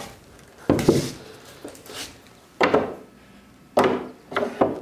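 Four short wooden strokes and knocks with sharp starts, a second or so apart: a hand plane skewed along a board's edge to trim a bevel, then tools handled on the wooden bench as the bevel is checked with a bevel gauge.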